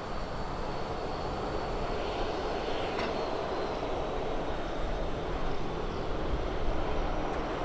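Boeing 737-800's CFM56-7B turbofan engines running at taxi power, a steady rumble with a thin high whine.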